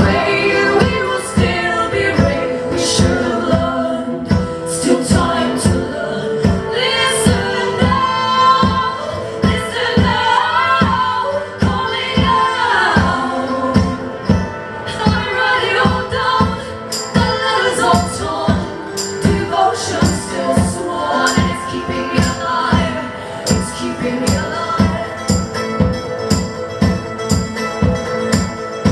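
Live band music: two women singing together over a strummed guitar and a steady beat, with a tambourine.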